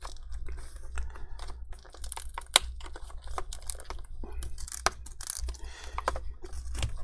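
Laptop screen bezel being pried off with a metal prying tool: a run of irregular clicks and small snaps, two of them louder, as the bezel comes away from the double-sided adhesive tape holding it to the screen.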